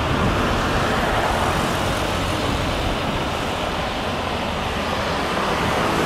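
Steady, even roar of distant engines with a low rumble underneath, holding level throughout.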